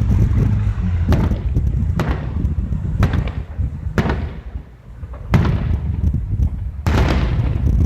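Aerial fireworks shells bursting: six sharp bangs about a second apart, each trailing off in an echoing rumble, over a steady low rumble.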